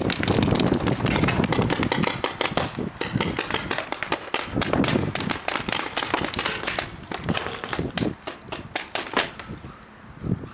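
Paintball markers firing many rapid pops in quick volleys, which thin out and stop near the end.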